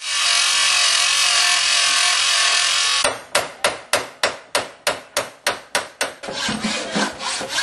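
A power tool grinds with a steady hiss for about three seconds and then cuts off abruptly. Regular hand-filing strokes follow, about three a second, as a file or rasp is worked back and forth across a workpiece.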